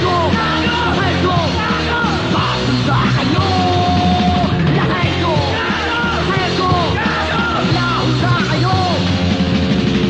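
Recorded punk rock song: a loud, dense full-band mix with a steady bass line and shouted vocals.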